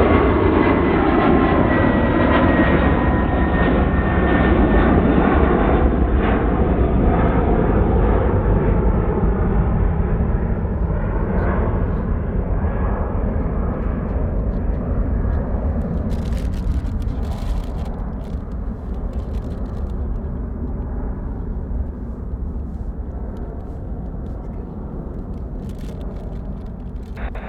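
Airbus A310-308 with two GE CF6-80C2 turbofans at takeoff power, departing. Its whine falls in pitch early on as it passes, and the loud jet noise then slowly fades as it moves away.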